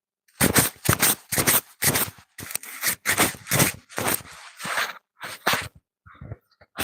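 A quick, uneven run of rough scraping or crunching noises, two or three a second, that stops shortly before the end.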